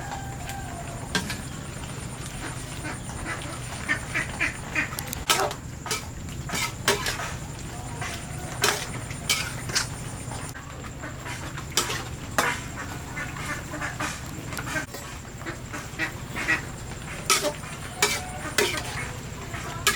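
Ducks quacking in short repeated calls, with sharp clicks scattered among them.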